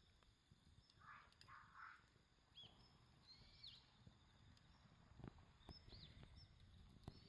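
Faint bird chirps, short hooked calls coming a few at a time, over a quiet outdoor background with scattered soft crackles and clicks.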